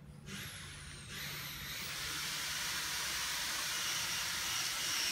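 A steady hiss starts suddenly about a third of a second in and grows louder about a second in, holding steady after that, with a faint high whistle in it.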